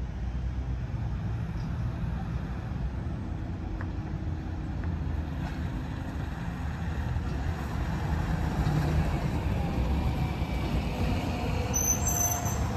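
Single-deck city bus engine running as the bus drives and turns past close by. The low rumble grows louder over the second half.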